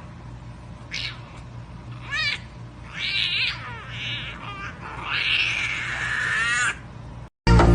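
A cat meowing about six times in short, pitched calls, the last one long and drawn out. Loud dance music cuts in at the very end.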